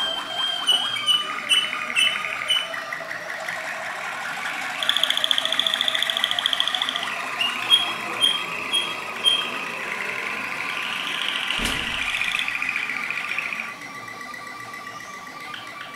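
Malinois Waterslager song canaries singing: rolling trills and runs of clear repeated notes, with a fast, even trill about five seconds in and a series of separate ringing notes a few seconds later. The song turns softer near the end, and a single dull knock is heard partway through.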